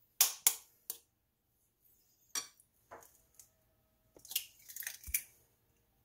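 An egg being cracked into a ceramic bowl: a few sharp taps in the first second, then crackling as the shell is pulled apart, with a soft thud about five seconds in as the egg drops in.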